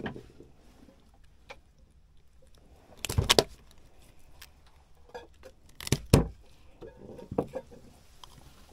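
Sharp thumps and clatter of handling, loudest as a quick cluster of knocks about three seconds in and another about six seconds in, with lighter clicks between.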